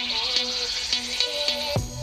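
Electronic music played through a pair of $37 fake AirPods Max over-ear headphones, picked up by binaural microphones inside a dummy head's ears: a short-note melody over a light beat, then, about two seconds in, a heavy bass line and kick drum come in.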